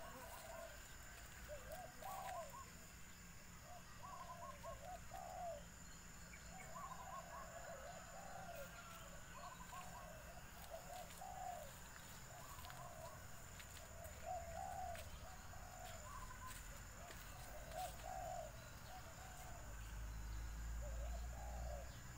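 Faint birdsong: short, low calls repeating every second or two.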